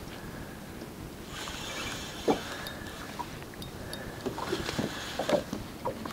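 Spinning reel being wound in spurts while playing a heavy pike, a hissing whirr that stops and starts twice. Two sharp knocks stand out, about two seconds in and again near the end.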